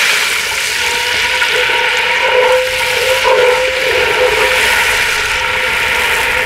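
Vegetable stock poured into a hot cast-iron Dutch oven, hissing and sizzling steadily as it deglazes the browned paprika and pan drippings. A steady hum runs underneath.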